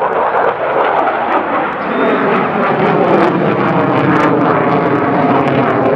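Fighter jet engine at high power as the jet climbs steeply overhead: loud, steady jet noise that rises sharply at the start and then holds even.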